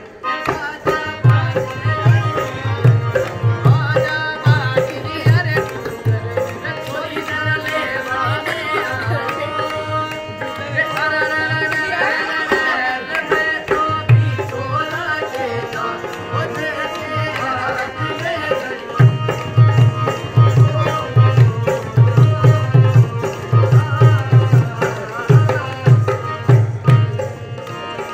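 Rajasthani folk song: a voice singing over a hand drum beating a fast rhythm. The drum drops out twice for several seconds, about a quarter of the way in and again past the middle, while the melody carries on.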